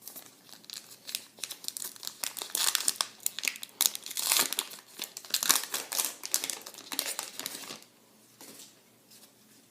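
Trading card pack wrapper being torn open and crinkled by hand, a dense crackle that builds after a couple of seconds and stops about two seconds before the end.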